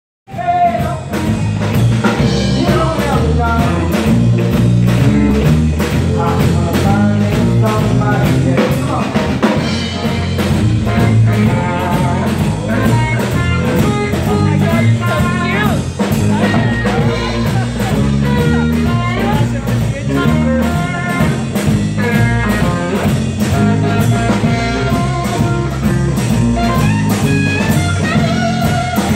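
Live band playing a blues jam: a drum kit keeps a steady beat under electric guitar and bass.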